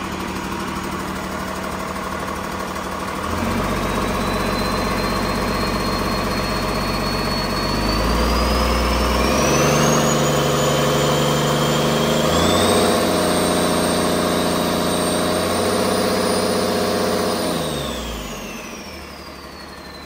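Hino J08E-VB 7.7 L turbocharged inline-six diesel running on a test stand. It starts at idle, is raised in speed in several steps, then drops back to idle near the end. A high turbocharger whine rises with each step and falls as the engine slows.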